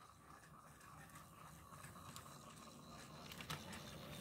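Faint whirring and clicking of a battery-powered toy train running along plastic track, with one sharper click about three and a half seconds in.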